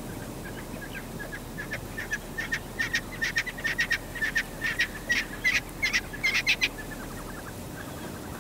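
A bird's rapid, repeated calls, about three a second, growing louder from about a second in and stopping shortly before the end, over a steady background hiss.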